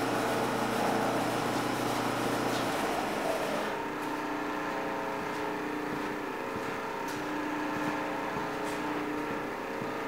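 Acra Mill vertical milling machine running: a steady motor hum made of several pitches. About three seconds in, the lowest hum stops and the hiss drops away, while the rest of the hum carries on.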